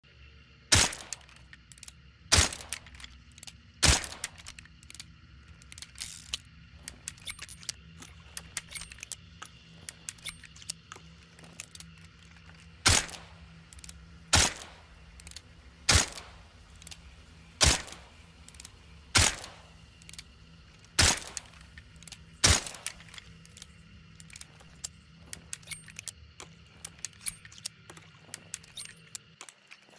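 Suppressed Nagant M1895 revolver firing: three shots about a second and a half apart, then a run of small mechanical clicks, then seven more shots at a steady pace of roughly one every one and a half seconds. Light clicking and rattling of the gun's mechanism fills the gaps and follows the last shot.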